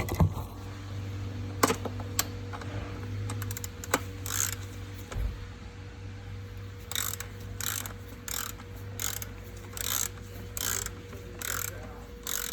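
Socket ratchet being worked back and forth on the intake manifold bolts: a short burst of pawl clicks on each return stroke, coming about twice a second from about four seconds in.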